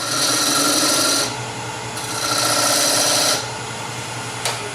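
A homemade point tool, a Phillips screwdriver ground to a three-sided point, scraping into spalted blackjack oak spinning on a wood lathe, in two rasping passes of a little over a second each. The lathe hums underneath. Near the end comes a click, then the hum falls in pitch as the lathe winds down.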